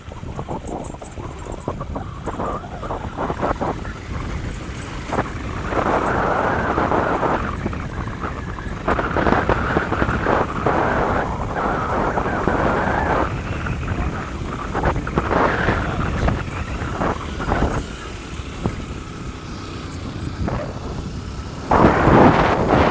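Vehicle driving over a rough dirt road, with its rumble mixed with wind buffeting the microphone in uneven gusts. It gets noticeably louder near the end.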